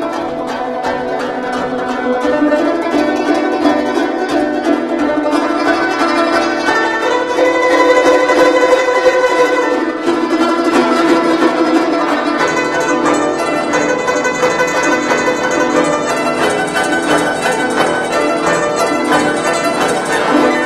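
Solo guzheng (Chinese zither) playing at a steady, loud level, with sustained notes made of dense, rapidly repeated plucks.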